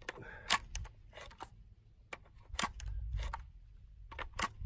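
A series of short, sharp clicks and knocks from an AR-15 magazine being handled in the rifle's magazine well, with a low rumble underneath.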